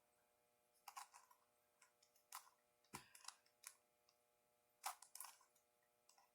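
Megaminx twisty puzzle being turned by hand: faint, scattered plastic clicks and clacks, some in quick clusters of two or three, as the faces are twisted.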